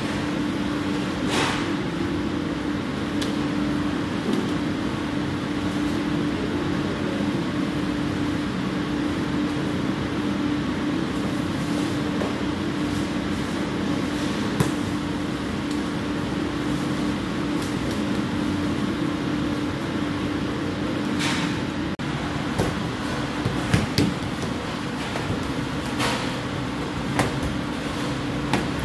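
Steady machinery hum of kitchen equipment, with a constant low tone, and a few scattered short knocks and taps, most of them near the end.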